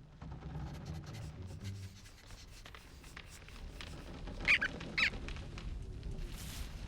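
Two short, high squeaks about half a second apart from a small cartoon animal, over a soft low ambient rumble.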